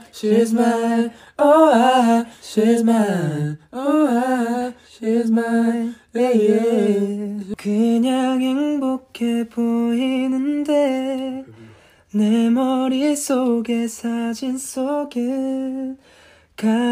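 A young man singing unaccompanied: a slow, soft melody in long held phrases with a light vibrato, broken by short pauses for breath.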